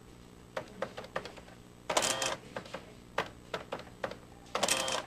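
Desktop printing calculator (adding machine) in use: single key clicks, then twice a short buzzing rattle of its print mechanism, about two seconds in and again near the end.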